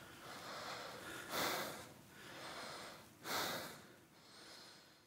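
A person breathing heavily in and out, about five noisy breaths roughly one a second, the ones about one and a half and three and a half seconds in louder than the rest.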